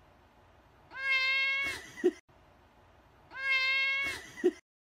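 Cat meowing twice, the same long meow repeated about two and a half seconds apart, each followed by a short, lower sound.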